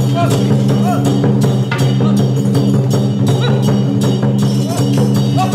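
Traditional Taiwanese temple-procession percussion of drums and cymbals beating a steady rapid rhythm of about three strikes a second, over a steady low drone.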